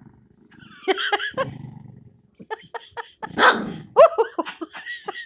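Small dog growling low while guarding his bone, breaking into a few snarling barks: resource guarding.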